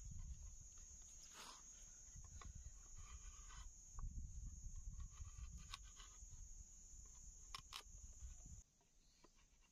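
Faint scraping and clicking of a knife blade cutting and shaving into a green bamboo tube, a few separate cuts, over a steady high whine and low rumble. The background drops away sharply near the end.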